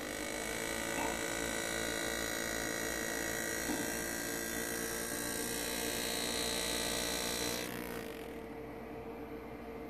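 Powered engraving graver buzzing steadily as it cuts into a pewter chalice, stopping about eight seconds in and leaving a faint hum.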